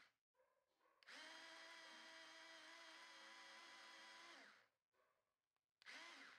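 Faint whine of a cordless rechargeable mini electric chopper's motor spinning its blades in pulses: one run of about three seconds starting about a second in that winds down in pitch as it is switched off, then a short half-second pulse near the end.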